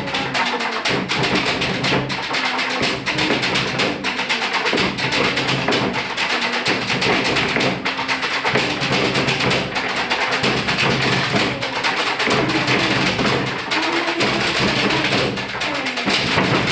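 Hands beating a steady rhythm on wooden school desks, with boys' voices chanting or singing along.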